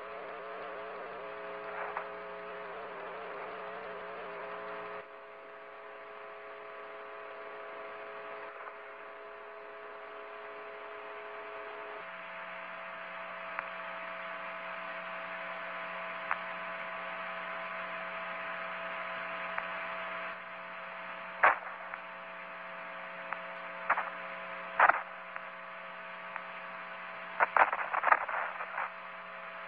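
Steady electronic hum and static hiss with several held tones. The low part of the hum drops out for several seconds early on and returns. Sharp crackles break through in the last third, bunching up near the end.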